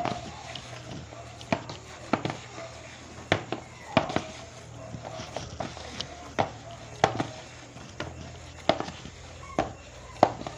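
Hands kneading murukku dough in a plastic bowl: irregular soft knocks and slaps as the dough is pressed and the bowl shifts, about one to two a second, over a low steady hum.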